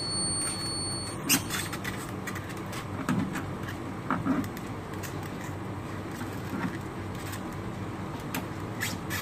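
Electrode lead pins being pushed into the output sockets of an interferential therapy unit: a handful of light, separate clicks over a steady background hum.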